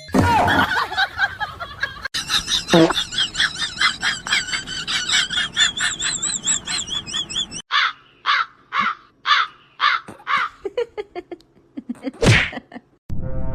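A bird calling: a dense run of rapid, warbling chirps, then a string of separate repeated chirps at about two or three a second. There is a brief noisy burst near the end.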